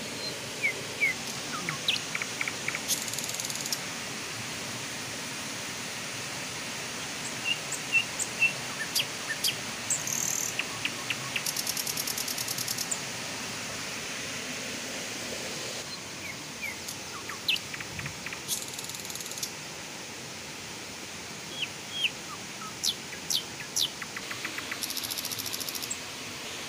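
Birds calling with many short, sharp chirps and several high, buzzy trills, over a steady outdoor hiss.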